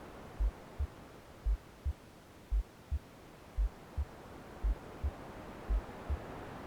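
Recorded heartbeat in a womb-sound track: paired low lub-dub thumps, six pairs about a second apart, over a bed of white noise that fades slightly and swells again near the end.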